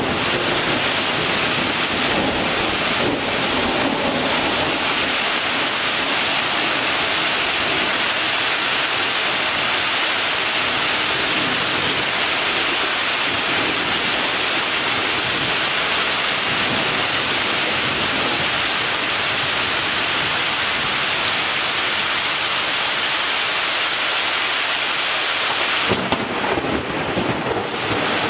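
Heavy rain pouring steadily in a thunderstorm, with thunder rumbling under it. Near the end the steady hiss breaks off into a rougher, uneven sound.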